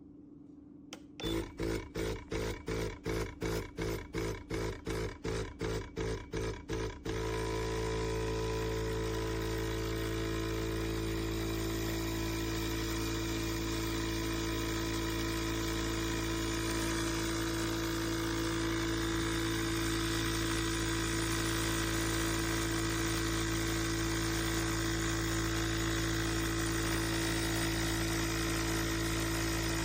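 HiBREW H10B espresso machine's pump pulsing about three times a second for several seconds, then running with a steady hum.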